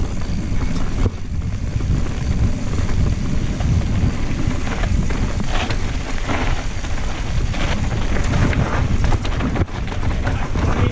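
Santa Cruz Blur mountain bike descending dirt singletrack at speed: tyres crunching over dirt and small stones, with scattered clicks and rattles from the bike, under a heavy rumble of wind on the action-camera microphone.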